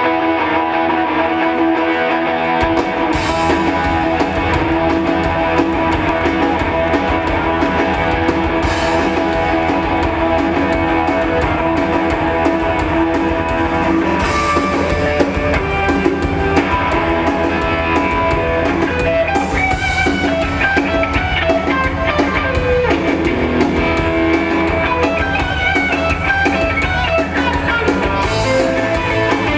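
Live blues-rock band playing loudly: an electric guitar through a Marshall amp over a drum kit, heard from the audience. The deep bass and drums come in about two and a half seconds in.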